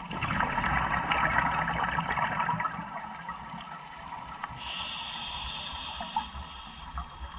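Scuba regulator breathing underwater: a burst of exhaled bubbles gurgles and crackles for the first two or three seconds, then the hiss of an inhalation through the regulator starts about four and a half seconds in.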